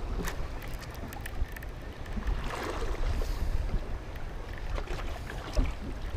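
Choppy lake waves lapping and slapping against the side of a fishing boat, with a low wind rumble on the microphone and a few light clicks.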